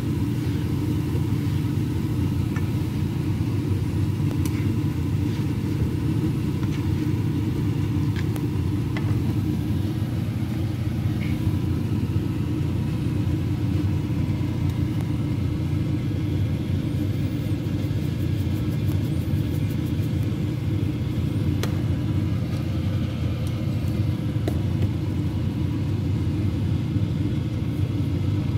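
A steady low rumble throughout, with a few faint clicks of a plastic spatula scraping a nonstick frying pan as fried rice is stirred.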